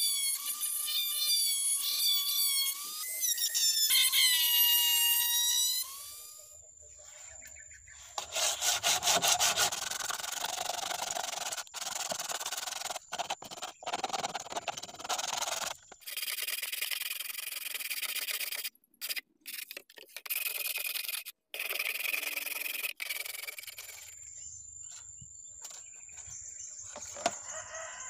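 A mini rotary tool with a sanding drum whining against PVC pipe, its pitch sagging and recovering as it loads up. After a cut, rough back-and-forth rubbing of a wooden block on the pipe follows in stretches broken by abrupt edits.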